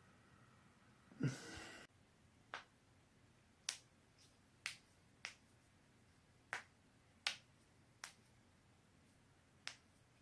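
A person's joints cracking: about eight sharp, separate pops at irregular intervals, after a short burst of noise about a second in.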